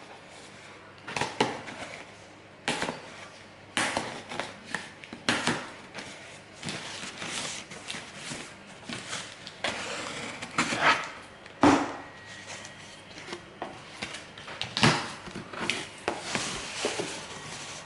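Shopping packaging being opened and handled: irregular rustling and crinkling with several sharp knocks and clacks.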